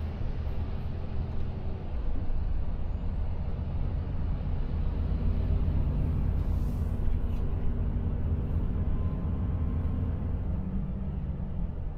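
Volvo FH 500 truck's 13-litre inline-six diesel running steadily at cruising speed, about 50 km/h, heard from inside the cab as a low drone over tyre and road noise.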